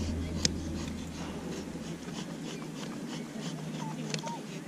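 A knife shaving thin curls off a stick of resinous pine fatwood (Kienspan), in quick repeated scraping strokes about three to four a second, with a couple of sharper clicks of the blade on the wood.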